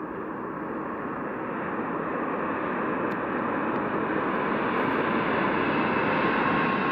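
Boeing 787 jet airliner on final approach, its engine noise a steady rush with a faint whine, growing louder as the aircraft comes closer.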